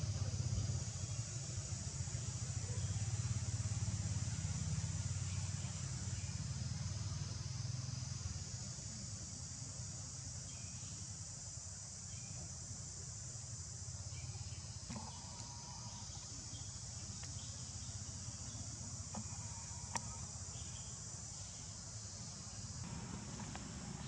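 Steady, high-pitched drone of insects, with a low rumble underneath that eases after the first several seconds, and a single sharp click near the end.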